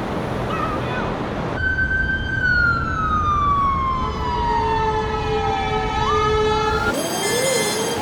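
City gridlock with an emergency-vehicle siren wailing, sliding slowly down in pitch for about four seconds and then sweeping back up. A steady lower horn tone is held under it for the last few seconds, over a constant traffic rumble.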